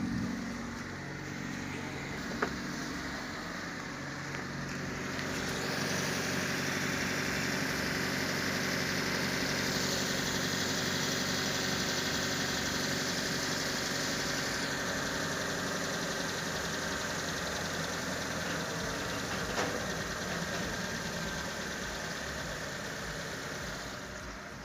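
Maruti Suzuki Dzire's 1.2-litre four-cylinder petrol engine running at its raised after-start idle of about 1500 rpm, with a single click about two seconds in. Near the end the sound eases down as the revs fall toward normal idle.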